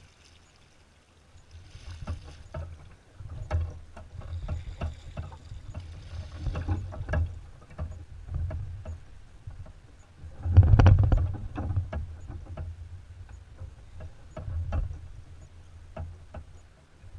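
Kayak paddling: a double-bladed paddle dipping and splashing in calm water, with drips, clicks and low thumps, and one louder thump a little past the middle.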